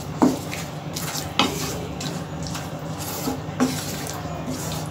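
Thick masala gravy stirred in a nonstick kadhai, with a scrape against the pan about once a second over a soft, steady sizzle.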